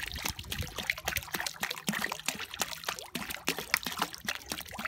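Copper sulphate solution poured from a plastic bottle into a bucket, trickling and splashing irregularly.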